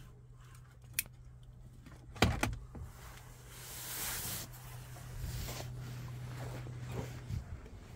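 Handling noise: a sharp click about a second in and a louder knock just after two seconds as plastic wiring connectors are handled, then rustling, over a steady low hum.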